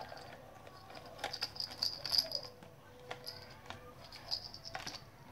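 Plastic toy duck on wheels being handled and turned in the hands: irregular clicking and rattling of its hard plastic body and wheels, with a few sharper clicks.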